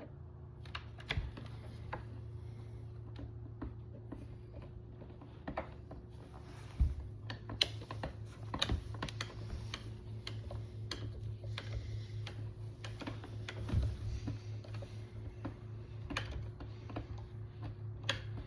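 Irregular light clicks and taps of metal parts and T-handle hex keys as screws are tightened on an outdoor bar stool, over a steady low hum.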